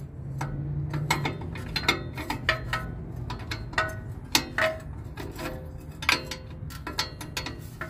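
Metal wrench working an oxygen sensor loose on the exhaust pipe: a run of irregular metallic clicks and clinks, several a second, some with a short ring.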